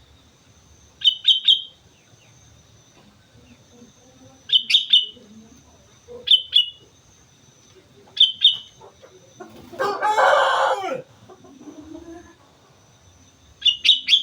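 Sooty-headed bulbul giving short, quick bubbly call phrases, five bursts spaced a few seconds apart. About ten seconds in comes a louder harsh, noisy sound lasting just over a second.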